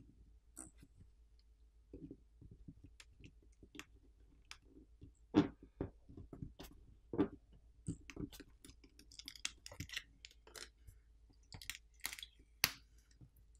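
Plastic pry pick working under a smartphone battery, with faint irregular clicks and crackles as the adhesive, softened with isopropyl alcohol, tears and lets go; a few louder snaps stand out.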